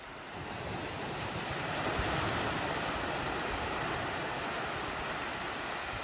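Small waves breaking and washing in over a cobble beach: a steady rush of surf that swells up over the first two seconds and then holds.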